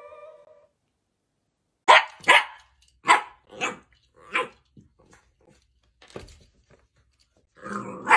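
A dapple miniature dachshund barking at its own reflection in a mirror: five sharp barks in quick succession, a pause with a few light clicks, then more barking near the end.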